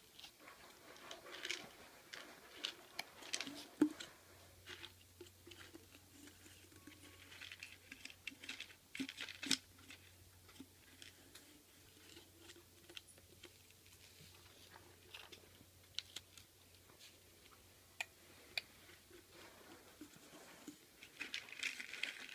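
Quiet, scattered clicks and crunchy rustles of a toddler's hand rummaging in a plastic snack cup, mixed with the small sounds of him chewing the snacks.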